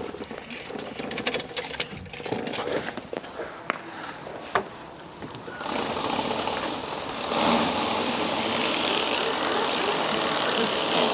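Scattered light clicks and knocks, then a steady mechanical running noise that starts about six seconds in and grows louder a second or so later, holding steady.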